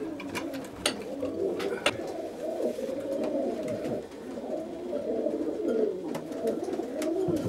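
Roller pigeons cooing in a small loft: a continuous, overlapping low warble from several birds, with a few sharp clicks scattered through it.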